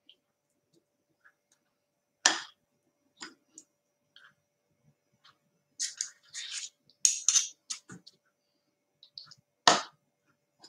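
Metal teaspoons clinking and scraping against each other and a glass mixing bowl as muffin batter is scooped and scraped into paper cups. There is a sharp clink about two seconds in, a quick run of clinks and scrapes in the middle, and another sharp clink near the end.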